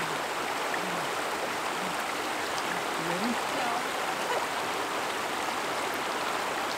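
Shallow, rocky river running over stones: a steady rush of flowing water.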